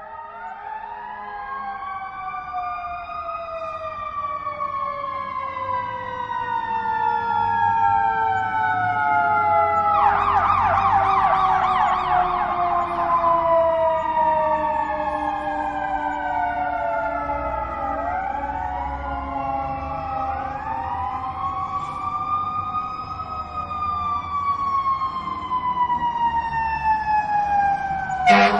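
Several emergency-vehicle sirens wailing at once, their slow rising and falling glides overlapping, over a low vehicle rumble. About ten seconds in, one siren switches to a fast yelp for a few seconds. Near the end a sudden loud blast cuts in.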